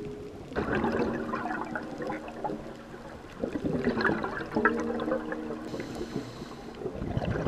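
Scuba diver's exhaled bubbles from a regulator, heard underwater through the camera housing: two long bubbling, gurgling exhalations, the first starting about half a second in and the second just before the middle.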